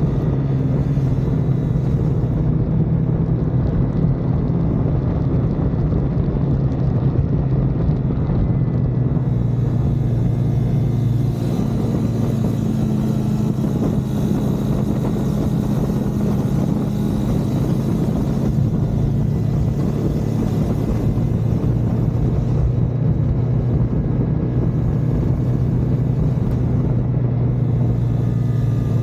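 Car engine running steadily under load at a track-day pace, its note stepping up about eleven seconds in and holding at the higher pitch.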